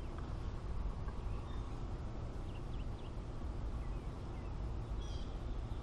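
Outdoor ambience: a steady low rumble with a few faint, short bird chirps, about a second and a half in, around two and a half seconds in, and near the end.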